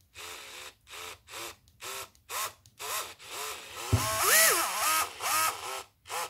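Bosch PSR 1800 LI-2 18 V cordless drill driver's motor run free in about a dozen short trigger bursts, each whirring up and back down in pitch. About four seconds in, a knock starts a longer, faster and louder run.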